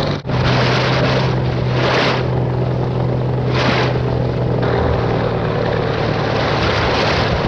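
Airboat engine and air propeller running at speed: a loud, steady drone with a low hum and a rushing hiss that swells briefly a couple of times. The sound cuts out for an instant just after the start.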